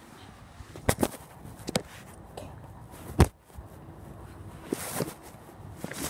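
Scattered knocks and rustling from a handheld phone camera being moved and bumped close to the microphone. The loudest, sharpest knock comes about three seconds in.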